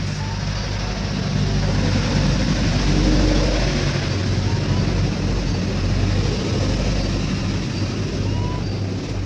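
Motor vehicle engine noise, a steady low hum that grows louder to a peak about three seconds in and then eases off, as of a vehicle passing close by.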